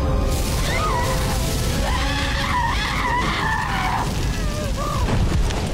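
Sound-designed effects: a heavy low rumble with a wavering, shrieking cry that rises and falls over it from about a second in until near the end.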